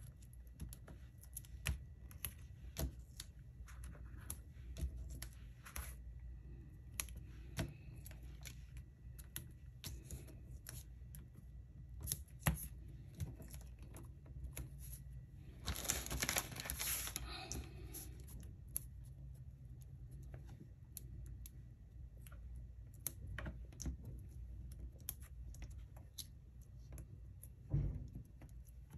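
Hands handling cardstock and paper craft pieces on a wooden desk: scattered light taps and clicks, a longer rustle about sixteen seconds in, and a knock near the end.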